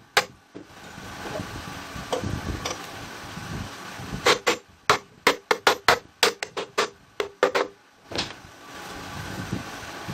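A hammer tapping a wooden edge strip into place against a glued pine panel: one sharp knock at the start, then a quick run of taps about four a second through the middle.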